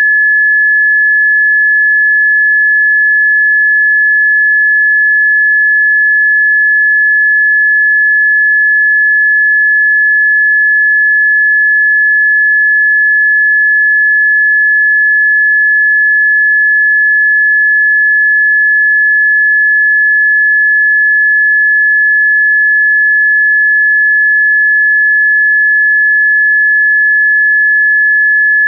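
A single steady pure sine tone, high-pitched and unwavering, electronically generated as a 'Rife frequency' for therapy listening. No other sound is present.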